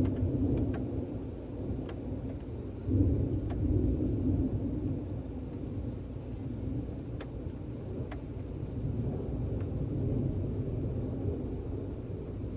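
Thunder in a thunderstorm. A peal rolls on at the start, and a second peal breaks about three seconds in and rumbles away slowly, with rain in the background.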